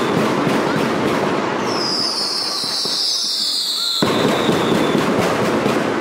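Firecrackers of a daytime mascletà going off in a dense, rapid crackle of bangs, in two volleys. Between the volleys a high tone slides slowly downward for about two seconds.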